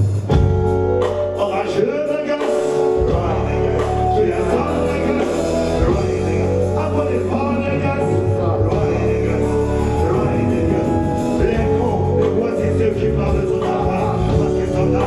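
Live reggae band playing: drum kit, electric guitar, keyboard and bass, with a man singing over it.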